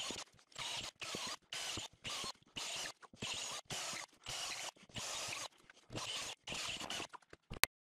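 A hand tool worked back and forth on wood in steady scratchy strokes, about two a second, ending with a sharp click near the end.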